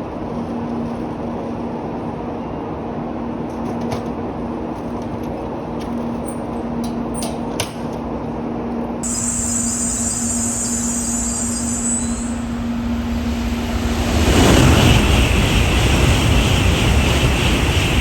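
Shinkansen bullet train passing at speed: a steady low rumble with a constant hum, then a hiss comes in about halfway through and a loud rush of noise swells up about fourteen seconds in.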